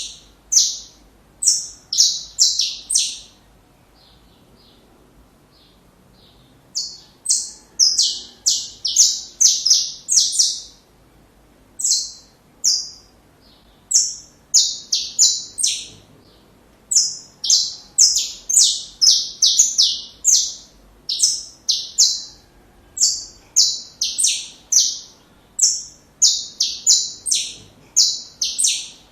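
Saffron finch singing: runs of short, high, chirping notes, about two or three a second, broken by a pause of a few seconds a little after the start.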